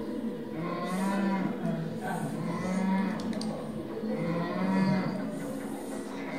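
Low, drawn-out, moo-like calls with a slightly bending pitch, swelling three times about two seconds apart.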